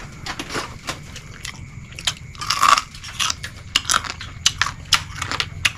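Close-up crunching and chewing of crisp cooked crab (kasag) shell, a string of sharp cracks with a louder crunch about two and a half seconds in.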